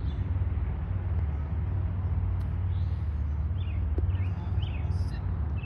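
Steady low outdoor rumble, with a bird chirping in short repeated calls through the second half.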